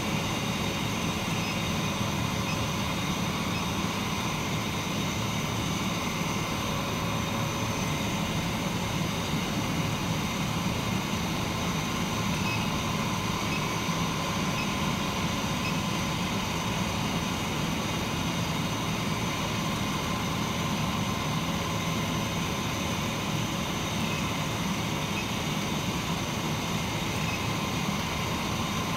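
An induction brazing machine and its cooling unit's fan running: a steady, even whir with faint high steady tones over it.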